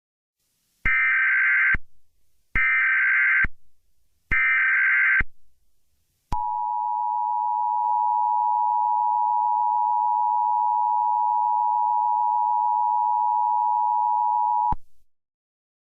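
Emergency Alert System tones: three short bursts of the SAME digital data header, each just under a second long, followed by the steady two-tone EAS attention signal held for about eight seconds before cutting off abruptly.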